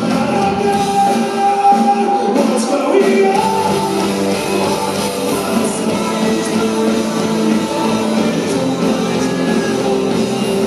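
Live rock band playing loud, with electric guitars, bass guitar, drums and keyboard under a sung lead vocal. The bass and drums come back in about three seconds in with a fast, steady beat.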